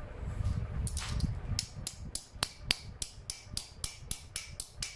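Ball-peen hammer striking a 1.2 mm mild steel hinge plate on an anvil in quick, even blows, about four a second. The blows curl the plate's edge around a nail to form the hinge knuckle. The steady run of blows starts about a second and a half in, after a couple of separate strikes.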